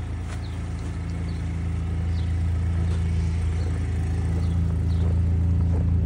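GMC pickup truck's engine idling steadily, growing a little louder toward the end, with a few faint scrapes and taps of snow being brushed off.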